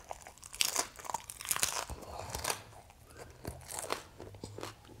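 Close-up crunching and chewing of a crispy fried flauta: irregular crackles with several sharper crunches spread through.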